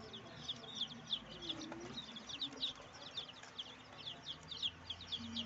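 A crowd of baby chicks of an improved ('melhorado') breed peeping together: a dense, continuous stream of short, high, falling peeps, many overlapping each second.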